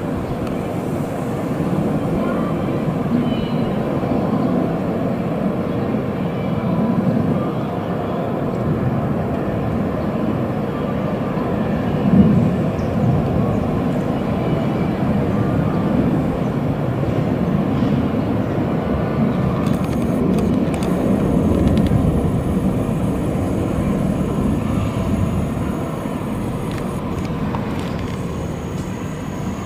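Twin-engine Boeing 767-200 jet climbing away after takeoff: a steady engine rumble with slow swells that eases slightly near the end.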